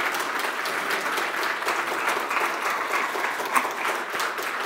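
Audience applauding steadily: many hands clapping together at the close of a lecture.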